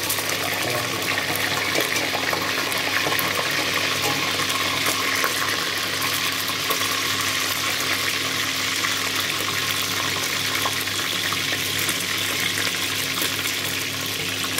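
Cubes of pork belly browning in hot oil in a stainless steel pot: a steady, dense sizzle full of fine crackles and pops, with a faint low hum beneath.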